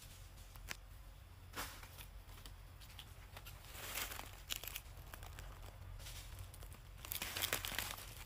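Dry rustling and crackling with a few sharp snaps, in short bursts, the loudest near the end.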